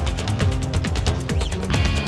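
Upbeat electronic background music with a fast, steady beat and heavy bass.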